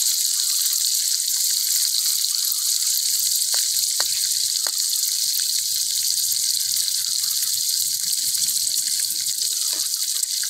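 Hot oil sizzling steadily in a steel wok as scorpions deep-fry, with a few faint short clicks a few seconds in.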